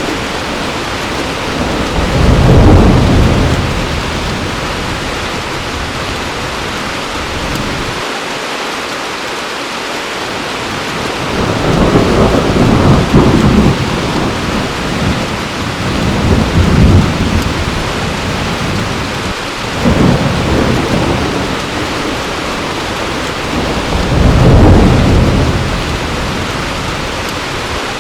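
Heavy rain pouring steadily, with thunder rumbling again and again over it: a roll about two seconds in, a longer one in the middle, and others later on.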